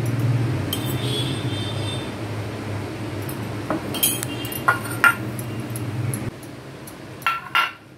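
A few light metallic clinks and taps of a spoon and fingers on an aluminium idli plate as oil is spread in its cups, over a steady low hum that stops about six seconds in.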